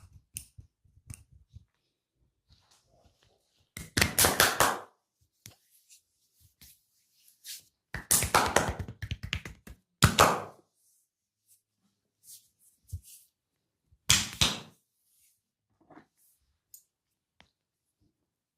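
A masseur's hands rapidly slapping and tapping on skin in four bursts of about a second each, with soft scattered taps between.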